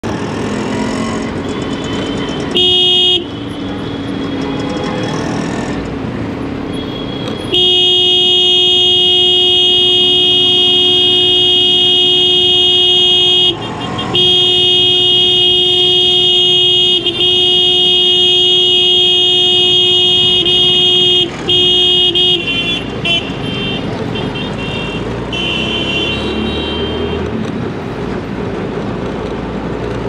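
Vehicle horn in busy city traffic, one steady pitch. A short honk about three seconds in, then it is held almost without a break for about fifteen seconds with a few brief gaps, followed by a few shorter honks. Steady traffic noise runs underneath.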